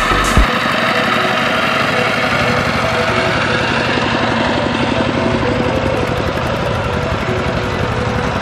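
Single-cylinder diesel engine of a two-wheel walking tractor chugging steadily as it pulls a trailer through deep mud.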